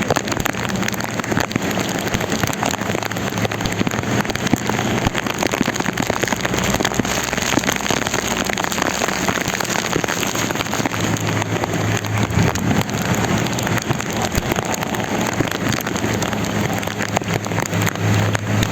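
Heavy rain falling hard, a dense continuous patter of drops striking surfaces, with a low steady vehicle engine hum underneath.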